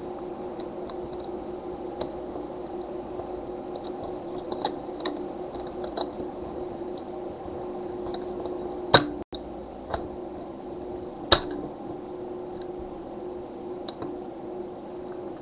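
Small ticks and clicks from a thin plastic casing being pried apart with a small tool, with two sharper snaps about nine and eleven seconds in. A steady low hum lies under it all.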